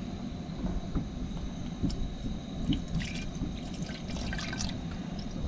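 Water gently sloshing and dripping, with a few light clicks and knocks scattered through.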